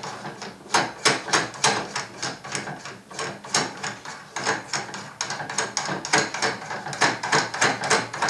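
Acme nuts being spun by hand down the Acme threaded screws of a Moxon vise, making a rapid, uneven run of clicks as they run along the thread.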